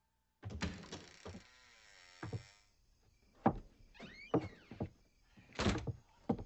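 A long creaking scrape, then a series of about five sharp, heavy thuds and knocks, irregularly spaced.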